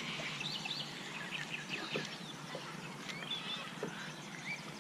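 Small birds chirping and calling: many short, high chirps and whistles overlapping, with a few faint knocks.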